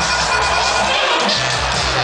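Electronic dance music played loud over a club sound system, with heavy bass, and crowd noise mixed in.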